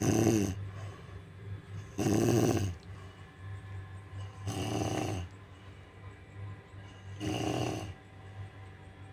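A woman snoring in deep sleep: four snores about two and a half seconds apart, with a steady low hum underneath.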